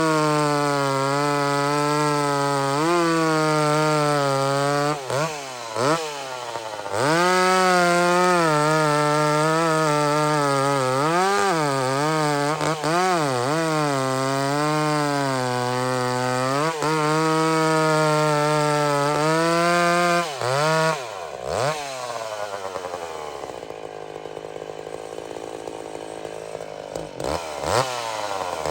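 Vintage two-stroke chainsaw cutting into a big tree at full throttle, its engine pitch wavering under load. The engine eases off briefly about five seconds in, drops to a quieter idle a little after twenty seconds, and revs up again near the end.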